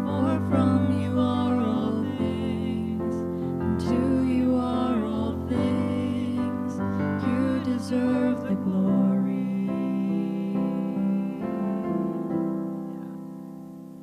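Electric keyboard accompanying women singing a worship song. The singing stops about two thirds of the way in, and the last held keyboard chord fades away near the end.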